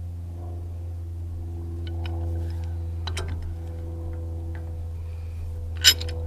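Steel pipe wrench clinking against the bottle jack's large top nut as its jaws are fitted onto it: a few light clicks, then one sharp metallic clank near the end. A steady low hum with held tones runs underneath.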